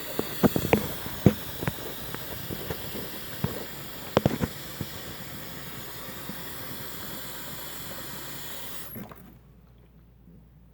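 Hot water running from a kitchen tap into a slow-draining sink, with a few sharp knocks and clatters; the tap is shut off suddenly about nine seconds in.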